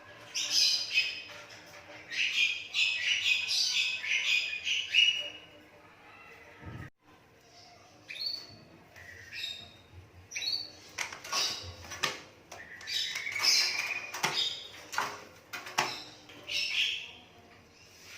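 Asian pied starling calling: a dense run of quick, varied squawks and chattering notes for about five seconds, then after a short pause a string of separate calls, one of them rising in pitch.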